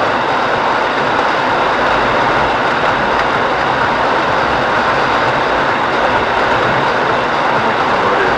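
Steady noise inside a moving car's cabin in a blizzard: the heater fan blowing on high over engine and road rumble.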